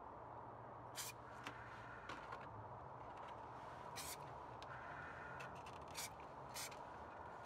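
Aerosol spray-paint can giving short bursts of spray, four brief hisses a few seconds apart, with paper rubbing as a paper mask is slid across the painting.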